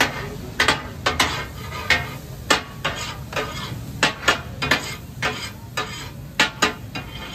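Steel spatulas striking and scraping on a large iron tawa griddle as fried fish is chopped and tossed for fish katakat: irregular sharp clanks, two or three a second, over a steady low rumble.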